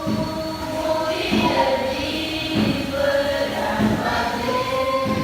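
About twenty girls singing a worship song to Jesus together, young voices in unison, recorded on a phone.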